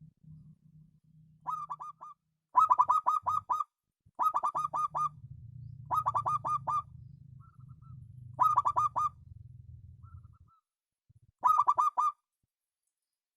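Zebra dove (perkutut) cooing: six short bursts of quick staccato notes, repeated every second or two.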